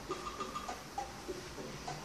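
Faint music: a short tune of a few clear notes that loops about every second and a quarter, with a higher held note near the start.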